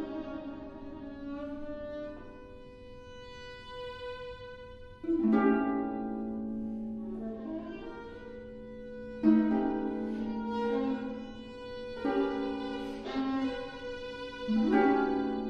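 Contemporary chamber music from a flute, viola and harp trio: long held bowed tones with harp notes, broken by sudden louder attacks about five, nine, twelve and fourteen and a half seconds in.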